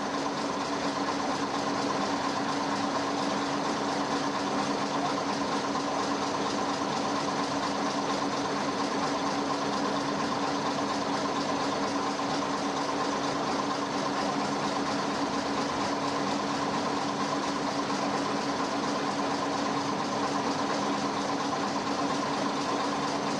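Lorry-mounted crane's engine running steadily at one constant speed, with a steady hum, while the crane takes the weight of a lift.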